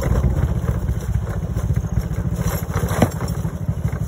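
Small motorcycle engine running steadily under way, a dense low rumble with quick, even pulsing. A single sharp knock sounds about three seconds in.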